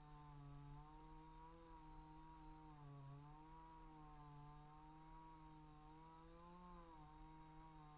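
A two-stroke chainsaw running at high revs, heard faintly, its pitch wavering and dipping briefly twice as the engine takes load in the cut.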